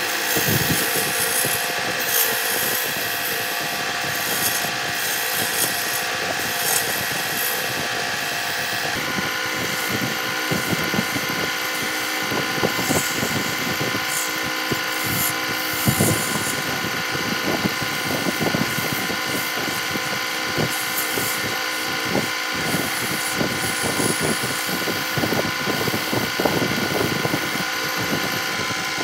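Wood lathe running with a steady motor hum while a hand-held chisel scrapes and cuts the spinning wood in short, irregular strokes. The hum changes about nine seconds in.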